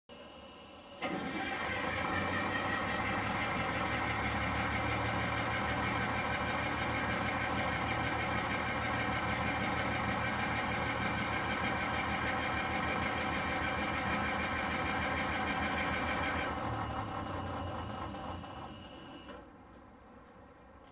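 A bus engine running steadily. It starts abruptly about a second in, then dies away over the last few seconds.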